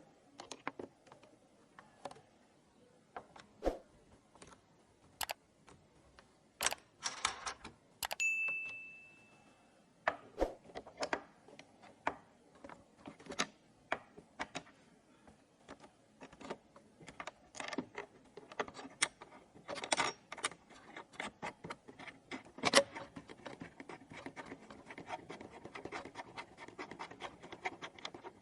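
Computer hardware being handled and fitted by hand: irregular small clicks, taps and scrapes of metal and plastic parts. About eight seconds in, one short metallic ring dies away over about two seconds.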